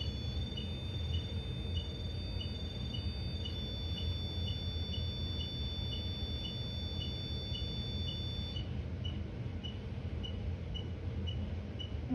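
A paranormal-investigation pod's electronic alarm going off: a steady high tone that cuts off about eight and a half seconds in. A short high beep repeats about three times a second throughout.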